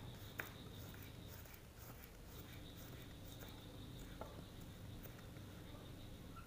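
Knife slicing garlic cloves on a plastic cutting board: faint, irregular taps of the blade on the board, with one sharper tap about half a second in.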